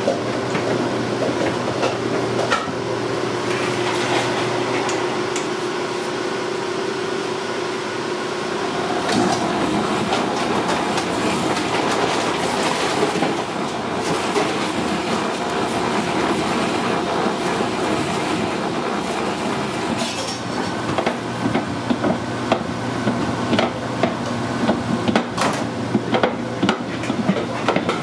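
Commercial spiral dough mixer running: a steady motor hum with a continuous rattle as the spiral hook turns through flour in the steel bowl. From about twenty seconds in, sharper knocks come more often as the flour gathers into dough.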